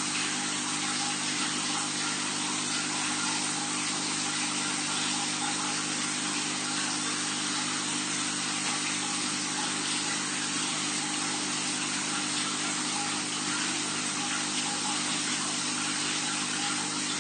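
Aquarium water pump running steadily, a constant hum under the hiss of circulating water.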